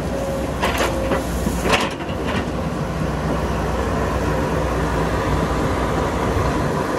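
Caterpillar 312 excavator's diesel engine running steadily under hydraulic load while the bucket digs soil, with a few sharp knocks in the first two and a half seconds.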